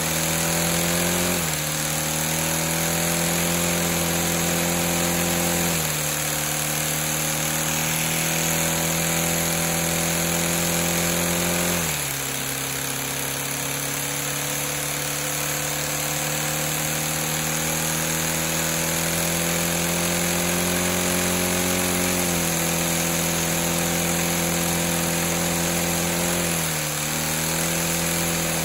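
LEGO vacuum-powered engine spinning its crankshaft at high speed, a steady mechanical hum over a constant rushing hiss of air. Several times the pitch drops suddenly and then climbs slowly back as the revs recover.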